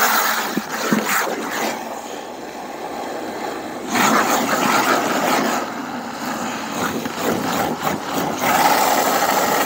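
Garden hose running water into a plastic bucket with soap in it, filling it. The rush of water is continuous and grows louder about four seconds in and again near the end.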